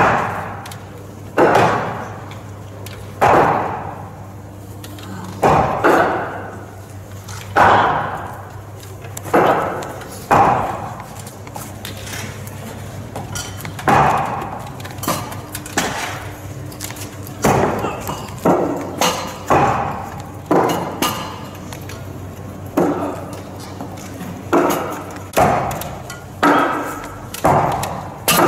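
Hammer blows, as in nailing to a wooden cross: sharp strikes every one to two seconds, each ringing out in a large, echoing room.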